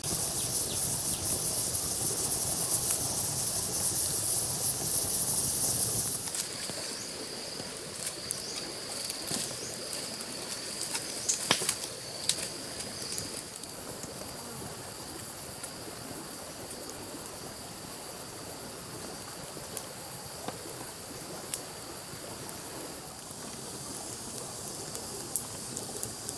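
Open wood fire hissing and crackling with scattered sharp pops, loudest for the first six seconds, then quieter. Insects buzz on a steady high note through the first half.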